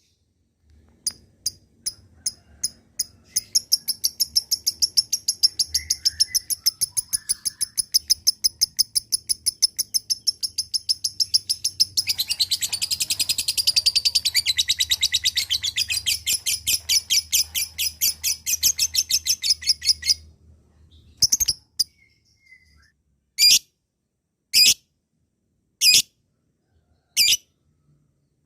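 Lovebird doing a long 'ngekek': a rapid, unbroken string of high chirps that builds and grows denser about halfway through and runs for nearly twenty seconds before stopping suddenly. Near the end come a few separate sharp chirps about a second apart.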